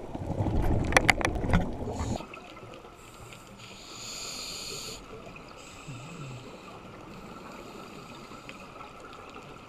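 Underwater sound of a scuba diver's exhaled regulator bubbles, a loud rumbling gurgle with crackling pops, that cuts off suddenly about two seconds in. After that a quieter steady underwater hiss, with a brief higher hiss of bubbles around the middle.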